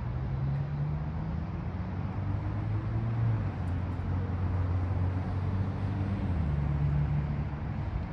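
A large engine running with a low, steady drone whose pitch shifts a few times, stepping down about two seconds in and back up near the end.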